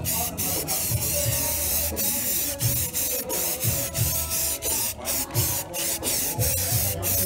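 Aerosol spray can spraying paint onto plastic body panels, a continuous hiss with many brief breaks.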